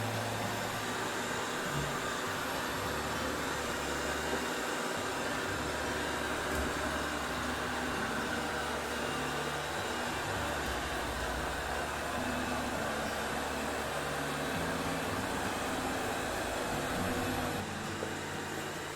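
iMartine C900 robot vacuum cleaner running, a steady whirring hiss of its suction motor and brushes.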